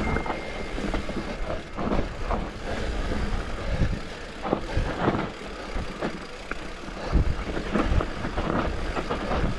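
Electric mountain bike riding downhill on a dirt trail: a steady rumble of tyres rolling over the ground, with irregular knocks and rattles from the bike jolting over bumps.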